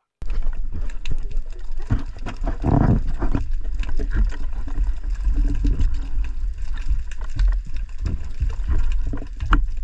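Muffled underwater audio from a diving camera: a steady low rumble of water moving around the camera housing, with scattered clicks and knocks and a louder surge about three seconds in.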